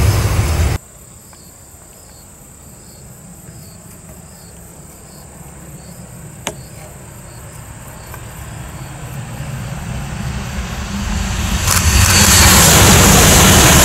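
Shinkansen high-speed train, an E6 series Komachi coupled to an E5 series Hayabusa, approaching at speed: its noise grows steadily louder and becomes a loud rush as it passes close by, from about twelve seconds in. Before it, the loud noise of a previously passing train cuts off suddenly about a second in, leaving faint steady insect chirping with a single click in the middle.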